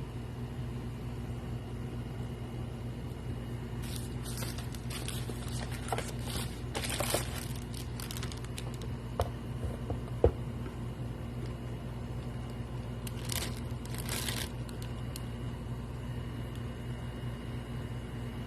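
Plastic packaging crinkling and rustling as it is handled, in two spells, with a couple of light sharp taps about ten seconds in, over a steady low hum.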